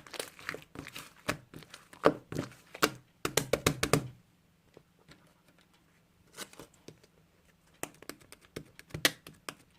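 Quick clicks and taps, close together for about the first four seconds, then sparser and scattered.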